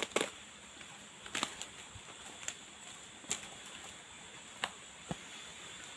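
A steady high-pitched insect drone, with about eight sharp snaps and clicks scattered irregularly through it, like dry twigs and leaf litter cracking underfoot.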